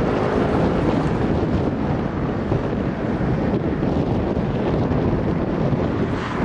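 Jet engines of an Airbus A321neo running steadily as it rolls along the runway, heard as an even rushing noise mixed with wind buffeting the microphone.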